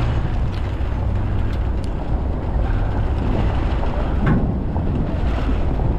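Strong wind buffeting the microphone: a steady low rumble under a rushing noise that does not let up.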